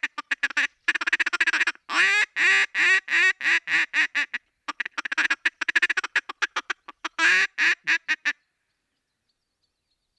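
Faulk's wooden mallard duck call blown in runs of loud quacks mixed with fast, rapid-fire feeding chatter, with short pauses between runs. The calling stops a little after eight seconds in.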